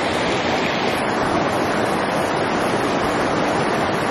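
Small rocky trout stream rushing steadily over stones in a riffle, an even, continuous water noise.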